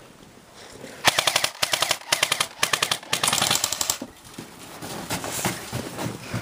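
Airsoft gun firing full-auto in three rapid bursts of quick, evenly spaced shots, the first about a second in and the longest near the middle.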